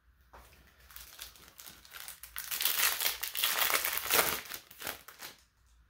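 Foil trading-card booster pack wrapper crinkling as it is handled and torn open, building to a loud crackle in the middle and then dying away.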